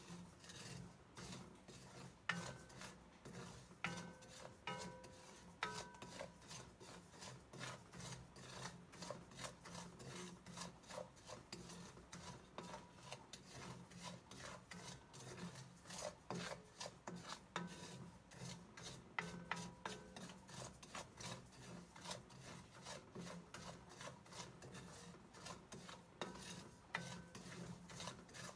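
Wooden spoon stirring and scraping coarse salt around a stainless steel pan, a continuous gritty rasping of dry grains. Now and then the pan rings briefly where the spoon knocks it. The salt is being dry-roasted.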